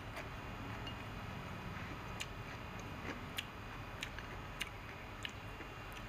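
Eating noodle soup: a series of sharp light clicks of chopsticks against a ceramic bowl, mixed with chewing, about one click every half second to second after the first two seconds, over a steady low hum.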